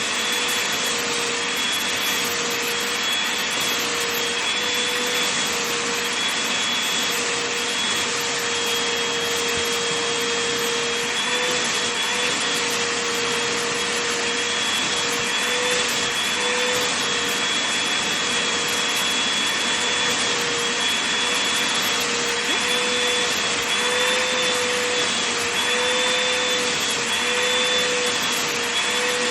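Vacuum cleaner running continuously as it is worked over a blanket. Its steady rushing hiss carries a motor whine that wavers slightly in pitch.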